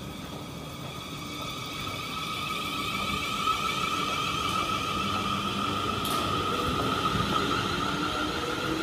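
Class 444 Desiro electric multiple unit pulling away, its traction motors giving a whine of several high tones that rises slowly in pitch and grows louder as it accelerates, over a low rumble of wheels on rail.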